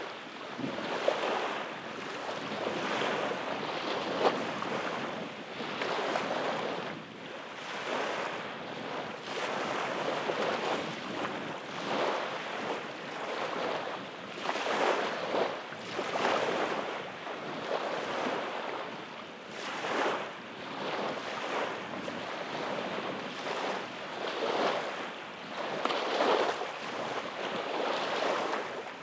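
Small waves washing up on a sandy beach, one wash swelling and falling away every second or two, with two brief sharp clicks about one and four seconds in.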